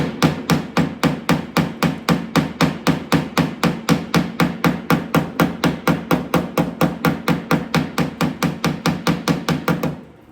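Hammer pecking rapidly on the primed steel door skin to knock down high spots, about five light, ringing taps a second in an even rhythm that stops just before the end.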